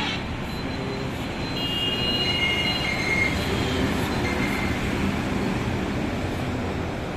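Heavily loaded multi-axle goods truck passing close by at low speed: diesel engine rumble and tyre noise on the road, loudest around the middle as it goes past.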